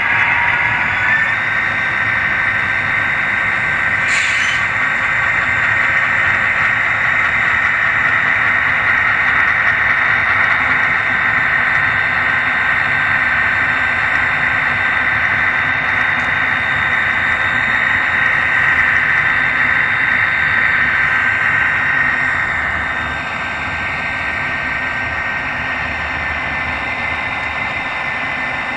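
Model diesel locomotive running along the layout's track, a steady mechanical whir that turns a little quieter for the last few seconds.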